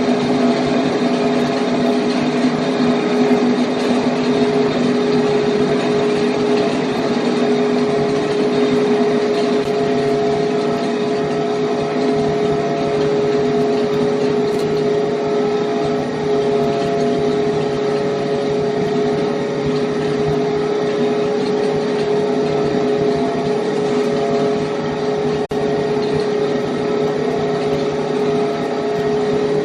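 Heavy industrial machine running with a steady droning hum over dense mechanical noise, dipping briefly about 25 seconds in.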